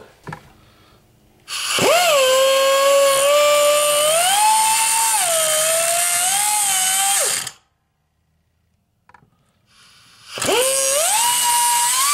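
Small air cutoff tool cutting a notch into the steel front output shaft rear roller bearing of an NP208 transfer case. It spins up with a rising whine about a second and a half in, its pitch sagging and climbing as the wheel bites, and stops a few seconds later. It starts again near the end.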